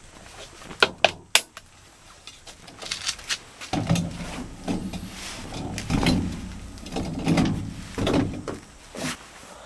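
Folding camp cot being assembled: a few sharp clicks as the leg bars are snapped onto the frame. From about a third of the way in come uneven creaks and thumps as the cot is set upright and its taut fabric bed is pressed down.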